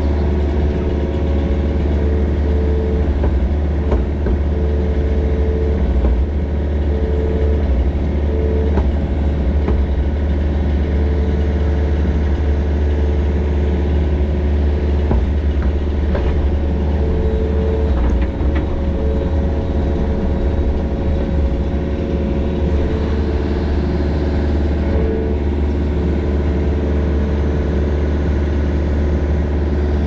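Mini excavator's diesel engine running steadily, with a whine that cuts in and out every few seconds and a few faint knocks as it works.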